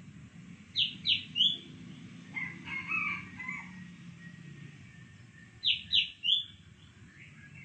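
Red junglefowl rooster crowing twice, about five seconds apart. Each crow is short and shrill, made of three quick falling syllables, and softer calls come in between.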